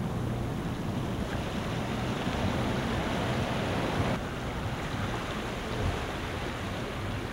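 Wind rumbling on the microphone, mixed with the wash of small sea waves against the shore.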